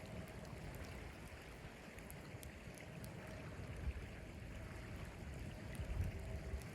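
Wind from a snowstorm rumbling on the microphone, swelling in gusts about four and six seconds in, with a few faint ticks.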